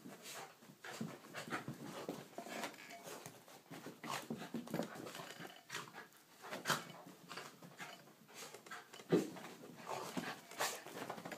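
Two small dogs play-fighting, panting and scuffling, with irregular short noises and one sharper sound late on.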